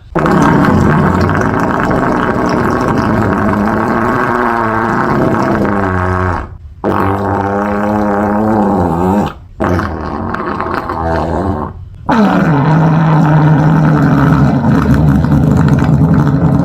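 Long, buzzing fart sounds, four in a row separated by brief breaks. The pitch of the first three wavers up and down; the last is a steady low drone.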